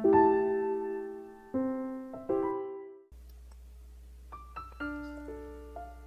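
Background piano music. Soft chords ring and die away, breaking off into a moment of silence a little under three seconds in. A quieter piano passage of single notes then begins over a low steady hum.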